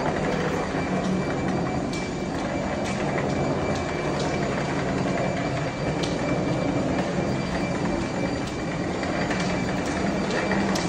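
Wheels of a hard-shell rolling suitcase running across a hard floor: a steady rumble with scattered light clicks.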